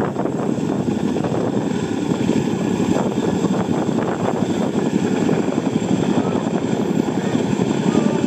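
CH-47 Chinook tandem-rotor, twin-turbine helicopter hovering low over water, its rotors and engines running in a loud, steady, fluttering drone.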